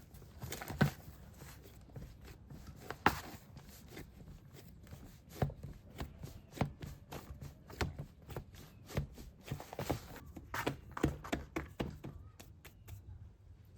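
Irregular knocks and thuds, roughly one every second, the loudest about 3 seconds in, growing sparser near the end.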